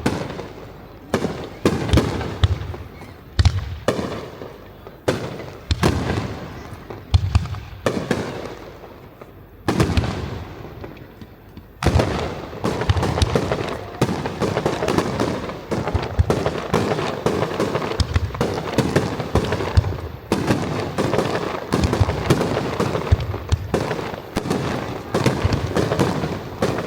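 Aerial firework shells bursting: separate booms with echoing tails every second or so, then from about halfway a dense, continuous barrage of bangs and crackling.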